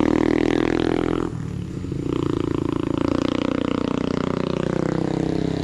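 Motorcycle engine running hard under load. Its sound drops abruptly about a second in, like a gear change, then pulls steadily again.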